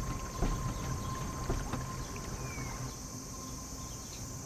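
Footsteps and light knocks by a parked car over a steady background with a faint high whine, then a car door shutting with a loud thump right at the end.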